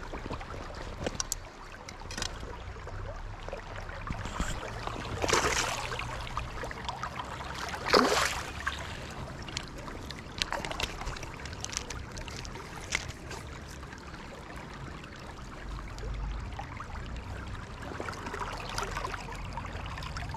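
River water running steadily, with two louder splashes about five and eight seconds in as a small hooked chub is played at the surface.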